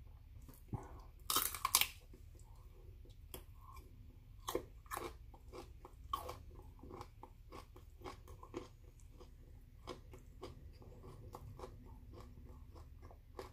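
A person biting and chewing a broccoli stalk: a loud crunching bite about a second and a half in, then irregular crisp crunches and mouth clicks as he chews on.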